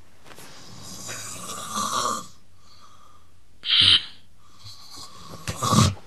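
Loud snoring: one drawn-out snoring breath building up about one to two seconds in, then two short, loud snorts, one about four seconds in and one near the end.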